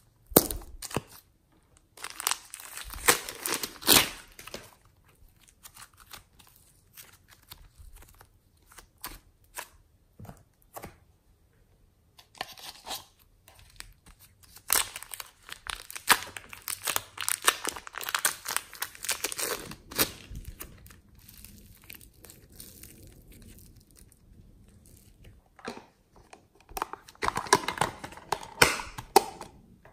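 Thin plastic packaging crinkling and tearing as hands open and peel bags of clay and slime, in three bouts of crackly rustling (at the start, midway, and near the end) with quieter handling between.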